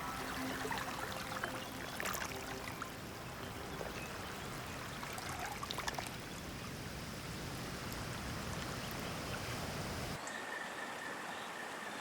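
Flowing water of a forest stream, a steady rushing wash with a few sharp clicks. About ten seconds in, the deep low part of the rush cuts off abruptly, leaving a thinner, higher water sound.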